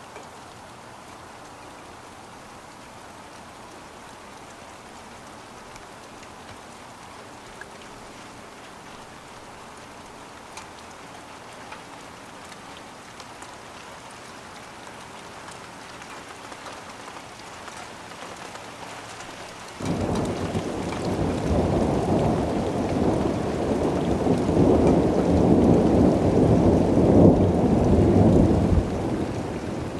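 Steady rain falling, then about two-thirds of the way in thunder breaks suddenly and rumbles loudly for about ten seconds, building and then easing off near the end.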